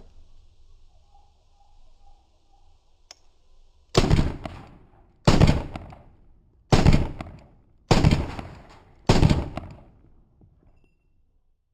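Beretta M9A4 9mm pistol fired five times, about one shot every 1.2 seconds, each shot trailing off over about half a second.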